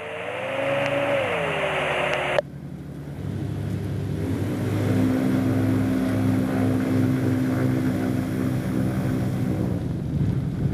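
A burst of radio hiss over the intercom, with a whine gliding up and back down, cut off by a click about two and a half seconds in. After it, the gyroplane's Rotax four-cylinder pusher engine runs steadily at taxi power as the AutoGyro MTO Sport rolls out along the runway.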